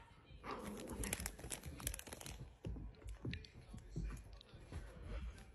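Faint rustling and crackling with scattered clicks and soft taps as dogs move about on a couch and carpet. The rustling is densest in the first two seconds.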